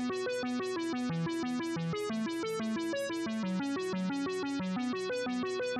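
Background music: a fast, even run of short synthesizer keyboard notes in a repeating pattern.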